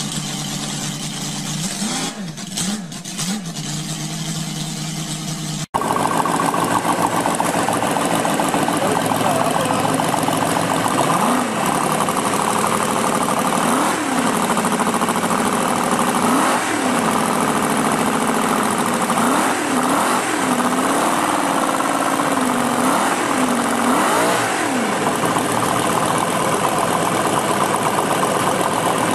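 A working miniature V8 model engine running, with a few small throttle blips. After an abrupt cut, a louder chrome miniature supercharged V8 model engine runs fast and is revved again and again in short blips that rise and fall in pitch, several in quick succession near the end.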